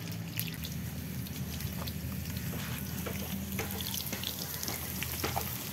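Potato chunks frying in hot oil in a wok over a wood fire: a steady sizzle with scattered small pops.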